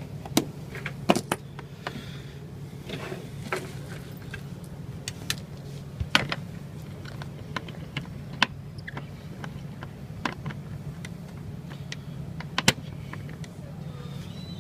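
Scattered clicks and taps of metal casement window hardware being handled as the washer-arm clips are secured back in place, over a steady low hum.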